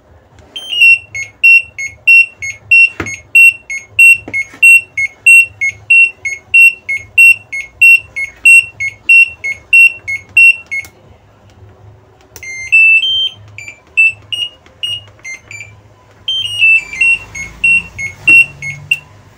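Piezo buzzer on an LG top-load washing machine control board beeping: a long run of quick, alternating high and low beeps, then after a short pause a few rising beeps and another quick run near the end. The board is powering up and responding, its fault having been a failed 8 MHz crystal that was replaced.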